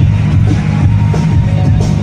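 Loud music with a heavy bass.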